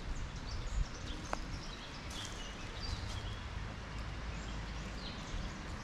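Outdoor ambience: a steady rushing background with a low rumble, and a few faint bird chirps a couple of seconds in.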